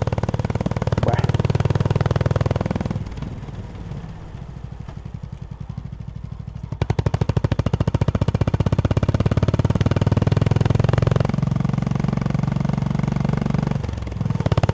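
Honda CB350 H'ness's air-cooled single-cylinder engine running as the motorcycle rides along. It goes quieter off the throttle from about three to seven seconds in, then pulls strongly again, with a brief dip near the end.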